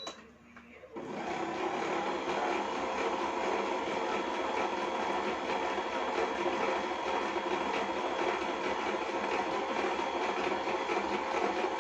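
Sutaking automatic noodle maker's electric motor starting up about a second in and then running steadily, with a fast, even low pulse beneath a dense mechanical whir.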